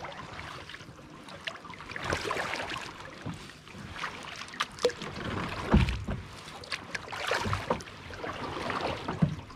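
Kayak paddle strokes close by: a double-bladed paddle dipping and pulling through calm lake water, with splashing and dripping in swells every couple of seconds. A louder low thump comes a little past halfway.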